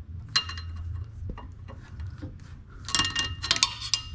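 Irregular metallic clinks and rattles from hand tools and metal parts being handled, some ringing briefly, with a busier cluster near the end. A steady low hum sits underneath.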